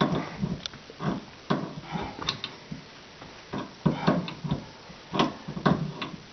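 Irregular knocks and clicks, about a dozen in all, of an adjustable wrench working on a water-supply fitting as it is tightened under a sink.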